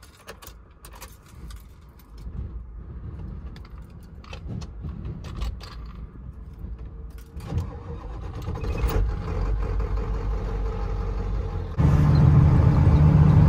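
Keys jangling in the ignition, then a Ford 7.3 Powerstroke turbo-diesel V8 starting and running, heard from inside the cab. Near the end the sound jumps to a louder, steady engine and road noise as the truck drives.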